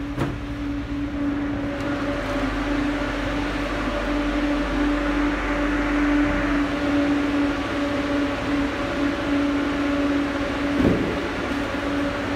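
Steady mechanical hum with a constant droning tone, and a single knock near the end.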